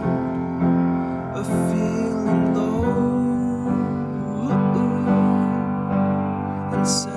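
Background music: a song with piano over held chords and a melody that glides up and down.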